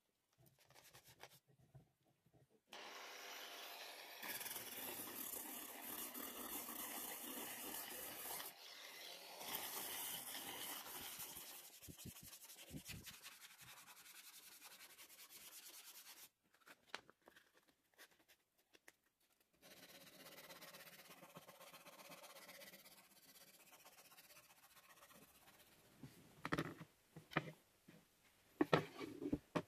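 Plywood stool seat being sanded, with abrasive paper rubbing steadily across the wood in several separate stretches. A few sharp knocks come near the end.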